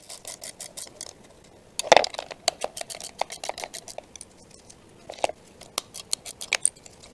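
Wrench working nylon-insert lock nuts off the stainless-steel wiper bracket of a floor-scrubber scrub deck: runs of rapid metallic clicks, about five or six a second, with a louder metal knock about two seconds in.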